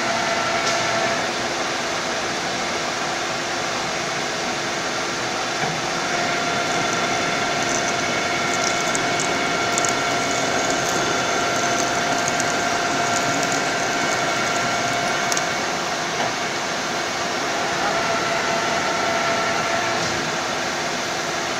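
CNC lathe running while it cuts a double-start thread into a metal shaft under flowing coolant. It makes a steady mechanical whir with several held tones, and there is a faint crackle of ticks through the middle stretch.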